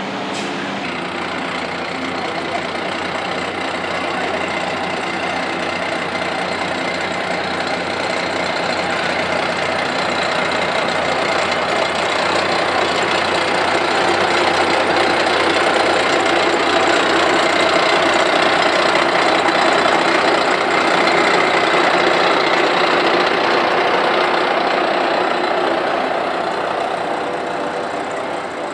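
A large vehicle's engine running with a knocking clatter as it passes slowly, growing louder toward the middle and fading near the end.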